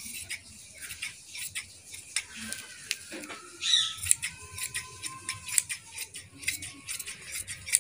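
Tailor's shears cutting through embroidered suit fabric: a run of short, crisp snips as the blades close again and again. About four seconds in, a brief high call sounds, followed by a faint steady tone for a couple of seconds.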